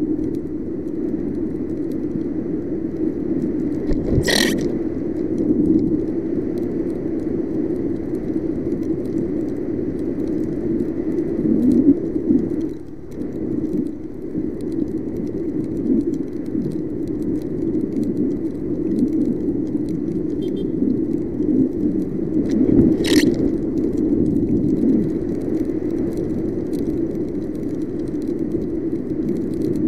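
Steady riding noise from a Yamaha NMAX scooter on a wet road, heard through a camera mounted on the scooter, with two sharp knocks, about four and twenty-three seconds in.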